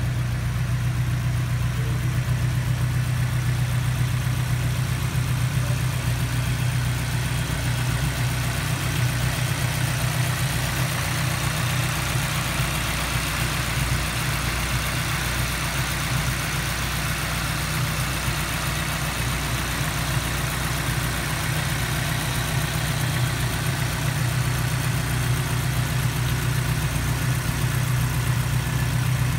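A 2013 Morgan Plus 4's Ford four-cylinder engine idling steadily, heard close up with the bonnet open.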